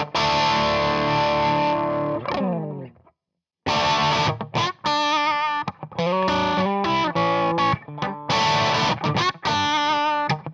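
Distorted electric guitar loop: a Fender Stratocaster through a crunch Marshall JCM800 amp profile and a Celestion cabinet impulse response. A held chord slides down in pitch and dies away about three seconds in. After a brief gap the loop starts again through a Celestion Vintage 30 1x12 closed-back cab, with strummed chords and short choppy notes.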